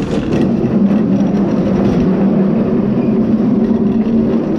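Heavy barbecue grill rolling on its wheels across pavement: a loud, steady rumble that stops abruptly at the end.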